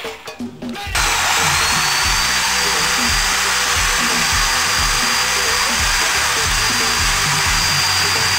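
Electric drill switching on about a second in and running steadily at full speed with a high whine, spinning a homemade lathe chuck. Background music plays underneath.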